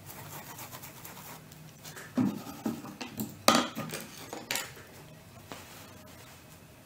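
Paintbrush scratching and rubbing over fabric as paint is brushed on, followed by a run of sharp knocks and clatter, the loudest sounds here, about two to five seconds in.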